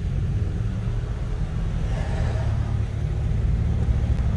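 BMW E93 M3's S65 V8 idling through a Dinan exhaust, a steady low rumble.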